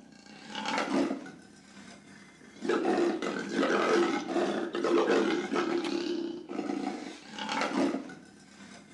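Cartoon street dogs roaring and growling in a pack: a short roar about a second in, then a long stretch of roaring from about two and a half seconds to six, another roar around seven to eight seconds, and a fade near the end.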